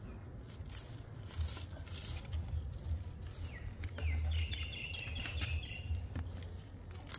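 Soft rubbing and rustling as a cat rubs its head and body against a wooden post, over a low steady rumble. A small bird chirps in the background from about three and a half to six seconds in.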